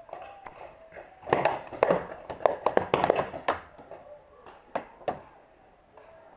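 Paintball markers firing: a quick, irregular run of sharp pops over about two seconds, then two more single shots.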